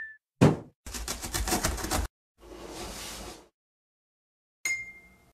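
Cartoon intro sound effects: a heavy thud about half a second in as the box lands, a rapid clatter lasting about a second, a softer whoosh, and a short bright ring near the end that fades out.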